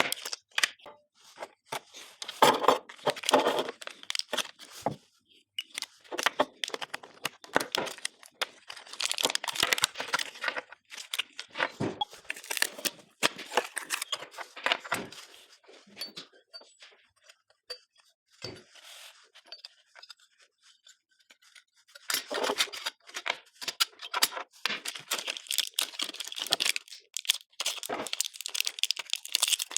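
Close-up crinkling, rustling and tearing, as of packaging or plastic wrap being handled and pulled open, in irregular spells with a near-quiet pause a little past halfway.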